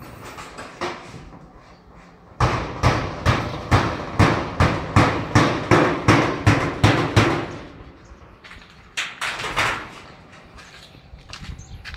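Rapid hammer blows, about three a second for some five seconds, with a faint ring, then two more strikes a little later.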